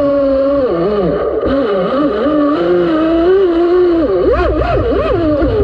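RC speedboat's brushless electric motor (Leopard 4074, 2200 kV, on 6S LiPo) whining as it drives the boat, its pitch rising and falling with the throttle and swinging quickly up and down about four seconds in, over a low rush of water and wind.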